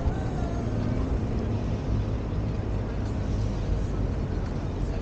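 Wind rushing over a moving camera's microphone while riding, a steady low rumble with no distinct events.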